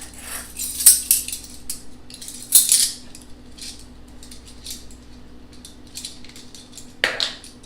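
Spoons and kitchen utensils clinking and tapping against a bowl and bottle while vanilla is measured out: a string of light metallic clicks, the two loudest about one and two and a half seconds in.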